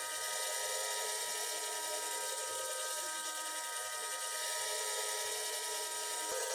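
Toy microwave running, a steady electronic whir with fixed tones. One tone cuts off with a click near the end.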